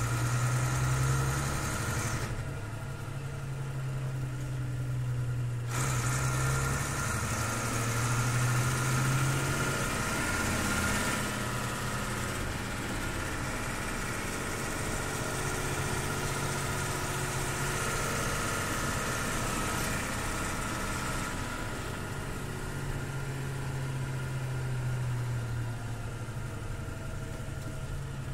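1984 Bedford 10-ton truck's six-cylinder diesel engine running steadily, heard from inside the cab.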